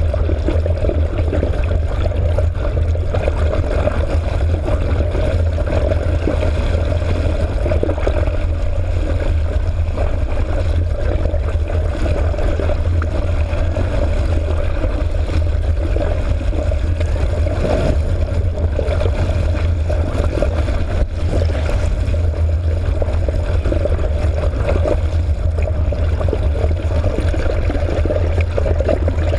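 Steady rush of water past an underwater camera, under a constant low drone.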